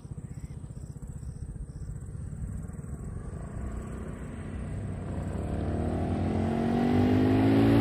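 Motor scooter approaching along the road, its engine growing steadily louder and rising slightly in pitch as it nears.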